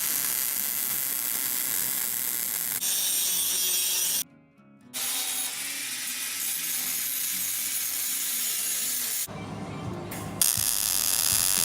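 Power tool cutting steel: a steady noise heavy in the highs, running in stretches of a few seconds with short breaks about four and nine seconds in.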